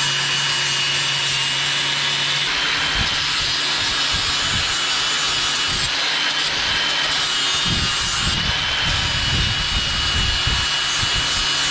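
A power tool spinning a homemade rust-cleaning contraption against the rusty inside of a metal part, giving a steady, loud scraping with a thin high whine.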